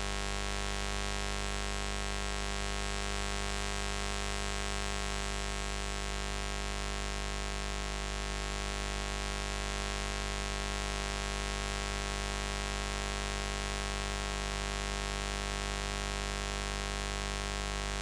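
Continuous electric buzz: a steady low hum with a harsh, dense stack of overtones, unchanging in pitch and loudness.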